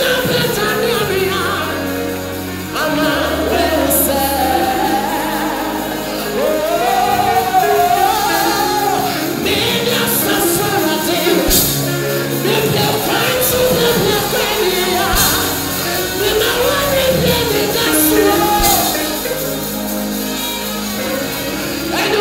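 Live gospel music: a man sings lead into a microphone in long melodic lines that rise and fall, over a band with bass and drums.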